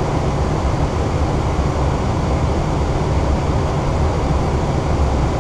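Steady rushing cockpit noise of an Airbus A320 in flight on approach: airflow around the nose and the air conditioning. The noise is even, with a heavy low rumble.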